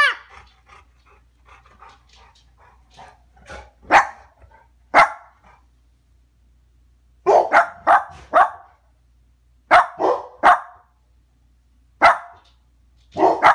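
Short, sharp barks in bursts: one or two about four and five seconds in, then clusters of three or four, and a last single bark near the end.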